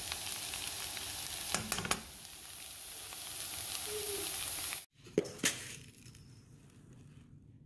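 Fish poriyal, a boneless fish and onion fry, sizzling steadily in a frying pan, with a few spatula clicks about one and a half seconds in. After an abrupt cut there are two knocks and a faint rustle as a hand scoops quinoa grains in a glass jar.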